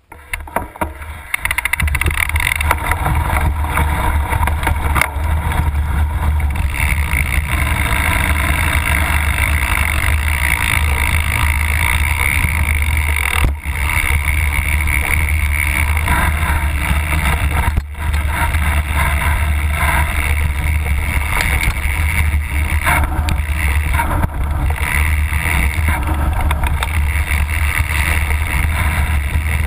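Mountain bike riding down a grassy trail, heard from a camera mounted on the bike: a steady, loud rolling rumble of tyres and bike over rough ground that starts about a second in.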